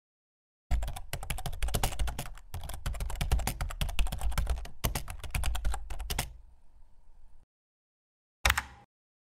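Computer-keyboard typing sound effect: a fast run of keystrokes starting just under a second in, thinning out after about six seconds, then one short burst of typing near the end.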